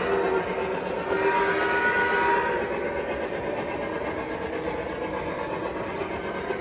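Sound system of a Lionel Legacy PRR 2-8-8-2 model steam locomotive: a chime whistle blows and cuts off about half a second in, and a shorter whistle note follows at about one to two and a half seconds. It runs on over the steady running noise of the model train.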